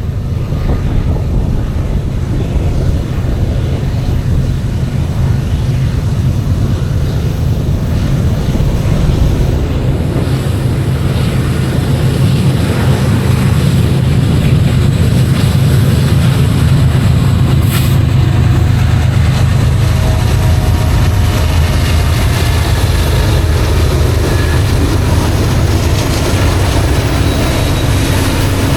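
BNSF freight train's diesel locomotives working up the grade, a steady low engine rumble that grows slightly louder, with a single sharp click about two-thirds of the way through.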